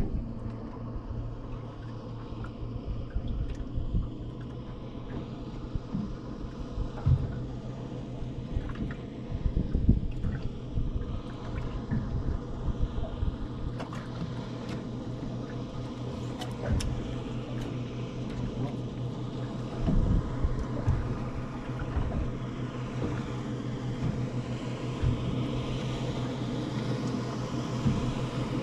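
A motorboat's engine idling with a steady low hum, with irregular low thumps over it. Another boat's engine grows louder over the last few seconds.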